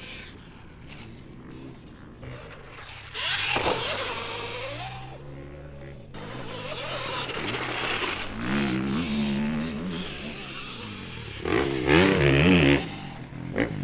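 Dirt bike riding past, its pitch rising and falling with the throttle. It gets louder about three seconds in and is loudest near the end.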